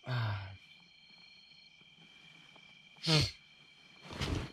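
A man with a head cold making nose and throat sounds. A low groan comes at the start, a short sharp sound falling in pitch about three seconds in, and a rough noisy blow or sniff near the end, over a faint steady high whine.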